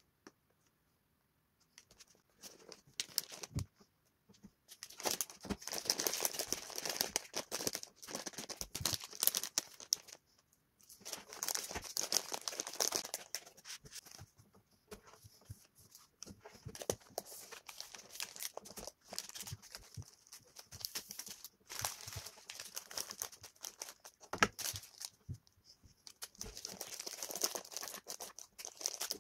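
Plastic snack packets crinkling as they are handled and stood in a cardboard tray, with small knocks and taps. It starts about two seconds in and comes in irregular bursts with short pauses.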